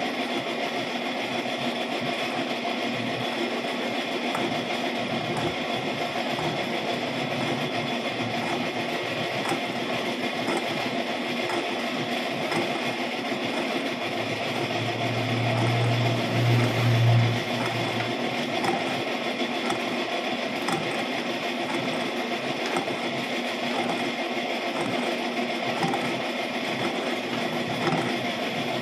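Metal lathe running steadily, spinning a welded propeller shaft with its universal-joint yoke clamped in the four-jaw chuck: an even machine drone. A louder low hum swells for a couple of seconds about halfway through.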